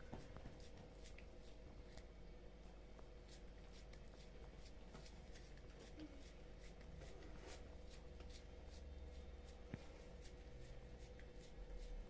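Faint rustling and soft scattered ticks from hands handling food and utensils, over a steady low hum.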